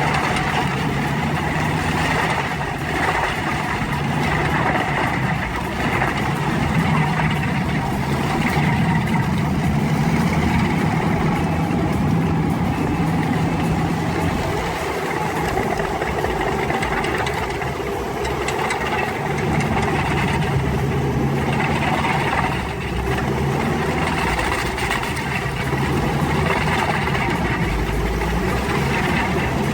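Heavy machine's engine running steadily with a low drone, its level rising and falling a little.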